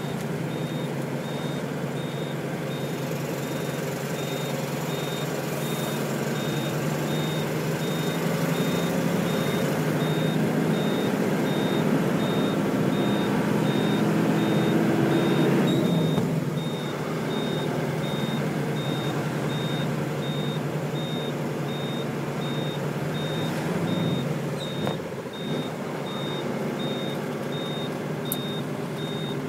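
Vehicle engine and road rumble in slow traffic, louder for the first half and then dropping off, under a high-pitched electronic beep that repeats evenly a couple of times a second throughout.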